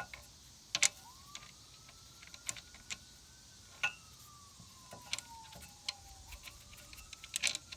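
Metal pieces of a brake caliper piston wind-back tool clicking and clinking now and then as the adapter is fitted to the rear caliper piston. A faint siren slowly rises and falls in the background.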